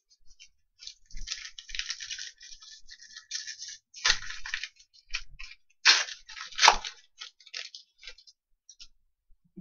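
Hockey trading cards being handled and slid over one another, a run of papery scrapes and rustles with a few sharper snaps of card stock, the loudest about two-thirds of the way through.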